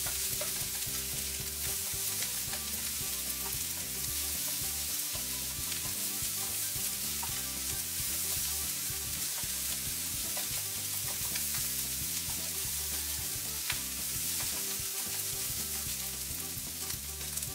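Fried rice sizzling steadily in a Teflon-coated frying pan as it is stir-fried, with a slotted turner and a wooden spatula scraping and turning the rice and giving occasional light clicks against the pan.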